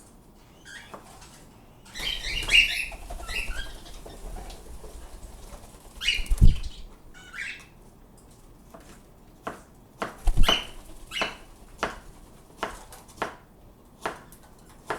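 Small pet birds fluttering their wings and giving short chirping calls, with two dull thumps and a run of sharp taps and knocks in the second half.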